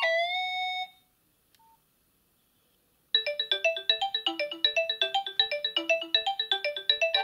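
Nokia 6280 built-in ringtones playing through the phone's speaker. One tune ends on a held note that slides up in pitch. After about two seconds of silence, a new polyphonic tune of short, quick notes begins.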